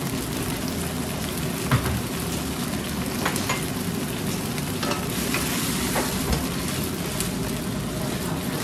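Food sizzling as it fries in hot oil in a pan, with a few sharp taps of a cooking utensil against the pan.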